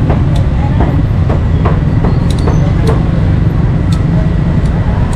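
Cleaver chopping meat on a wooden block: irregular sharp knocks, roughly one or two a second, over a steady low rumble.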